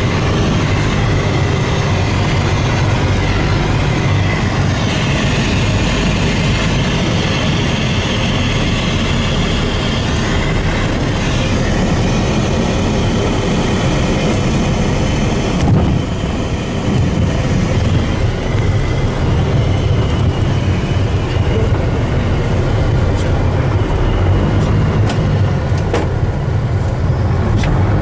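Light aircraft's piston engine and propeller droning steadily, heard from inside the cabin during landing and touch-and-go. The sound briefly dips and shifts about halfway through, then grows slightly louder toward the end.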